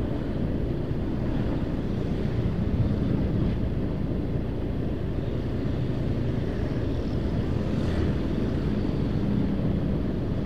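Steady wind rush over the microphone with a motorcycle engine running underneath, as the motorcycle rides along at a constant pace.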